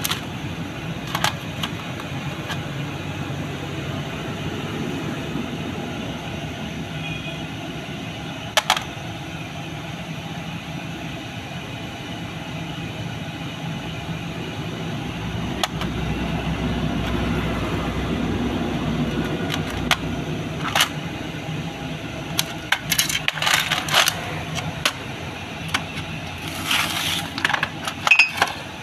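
Metal parts of a dismantled diesel fuel-injection pump clinking against one another and the metal tray as they are picked up and handled. There are a few single clicks, then a quick run of clicks near the end, over a steady low mechanical rumble.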